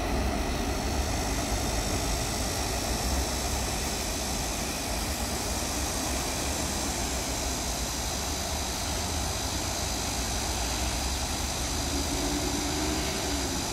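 Steady road traffic from the multi-lane road below, a continuous hum of car tyres and engines with no single vehicle standing out.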